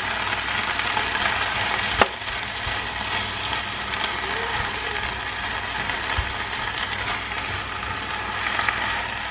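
Water spinach stir-frying in a pan: a steady sizzle with the rustle and scrape of a spatula tossing the leaves, and one sharp knock about two seconds in.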